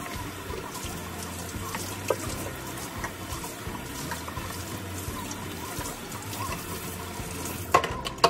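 Kitchen faucet running steadily into the sink while dishes are washed by hand, with light clinks of dishware. There is a sharper knock about two seconds in and a couple of clatters near the end.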